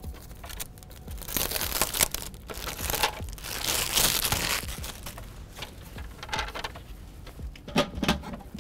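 Thin clear plastic bag crinkling as it is pulled off a plastic bucket lid, loudest about midway. Near the end come a few light knocks as the plastic lid is set onto the bucket.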